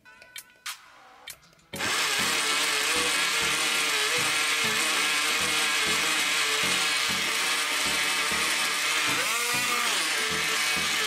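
Battery-powered PopBabies portable blender switching on about two seconds in and running steadily, its small motor and blades blending chopped banana and mango with soy milk and water into a smoothie.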